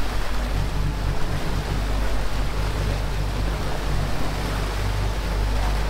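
Boat engines droning steadily underway, a constant low hum, with the wake rushing and churning behind the stern.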